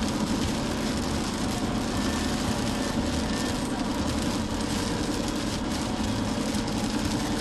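Steady noise inside a car driving in heavy rain: a continuous low engine and road hum under an even hiss of rain and wet tyres.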